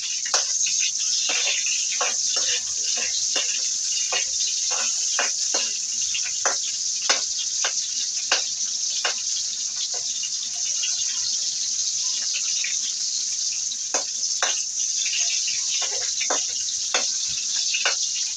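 Garlic and onion sizzling in oil in a metal wok, a steady hiss, with irregular clicks and scrapes of a metal spoon stirring against the pan.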